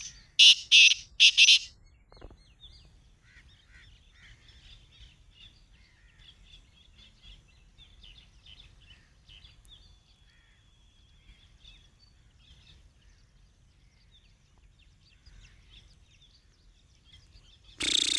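Black francolin calling: a loud, harsh run of four quick notes in the first two seconds. Faint chirping of small birds follows, and a second loud burst comes near the end.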